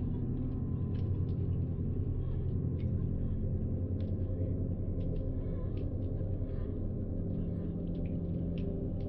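A steady low droning hum with faint scattered clicks.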